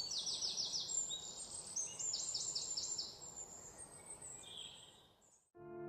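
Forest birdsong ambience: several birds calling over a steady hiss, with quick runs of about five falling chirps and higher whistled notes. It fades out about five seconds in, and piano music starts just before the end.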